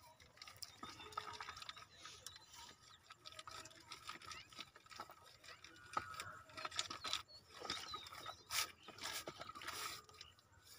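Quiet handling sounds, scattered clicks, rustles and scrapes, as the suction-pipe joint of a diesel irrigation pump is wrapped by hand to seal it against leaks; the engine is not running.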